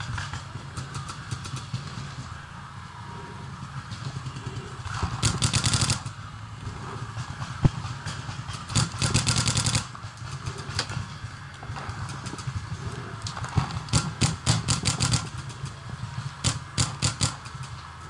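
Paintball markers firing rapid strings of shots in several volleys, the loudest about five and nine seconds in, each lasting about a second, with more strings near the end.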